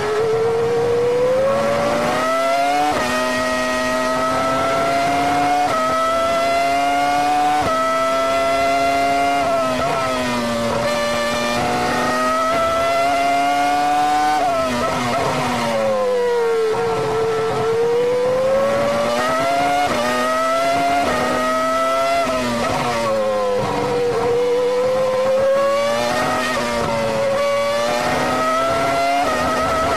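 2005 Minardi Formula One car's 3-litre Cosworth V10, heard onboard at full throttle. The pitch climbs through the gears with a quick upshift every couple of seconds. About halfway through and again a little later it drops as the car brakes and downshifts for corners, then climbs again as the car accelerates out.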